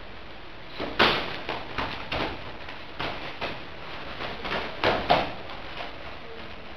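Taekwon-do sparring: an irregular run of sharp thumps and slaps from kicks and punches landing on padded gloves and foot protectors, the loudest about a second in and again around five seconds in.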